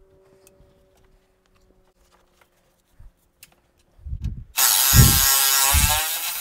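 Cordless power ratchet with a long socket extension spinning a bolt loose: a loud whirring hiss that starts about four and a half seconds in, with a few dull knocks of the tool against the fitting.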